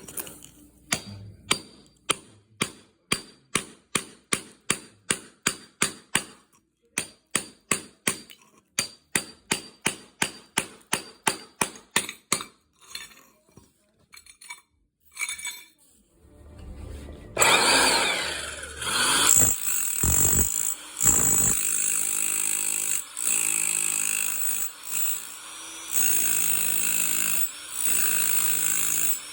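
Hammer striking a hand chisel to chip off tiles, about three blows a second for some twelve seconds, then a few scattered knocks. An SDS rotary hammer with a chisel bit then starts up and runs loudly in bursts, breaking up tile.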